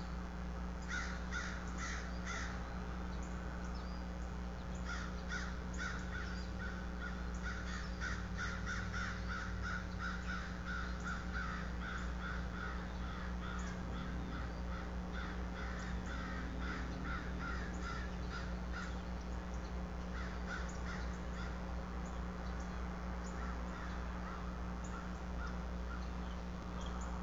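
Bird calls in runs of quick, repeated notes: a short run near the start, a long run of about fourteen seconds through the middle, and a brief one later. A steady low hum runs underneath.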